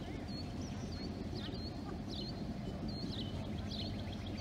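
EMD MP15DC switcher locomotive's diesel engine running steadily at idle, a low rumble, while small birds chirp repeatedly over it.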